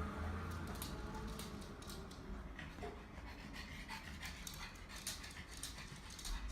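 Pug panting, with scattered light clicks.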